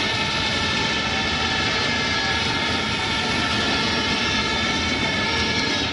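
Packed volleyball arena crowd making a loud, steady din while the opposing player prepares to serve, with held high tones running through the noise.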